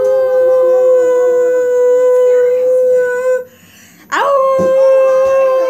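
Long wolf-style howls: a steady held call that stops about three and a half seconds in, then after a short break a second howl that swoops up and holds. A second, lower voice slides downward beneath the first howl.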